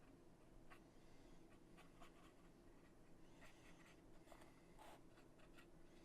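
Faint clicks and light scraping of small laser-cut MDF kit pieces being handled and fitted together, over near silence. The sounds come scattered, with a small cluster a little past halfway.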